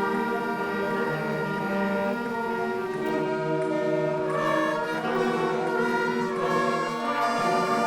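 Concert band music: brass and wind instruments holding slow, sustained chords that change every second or two.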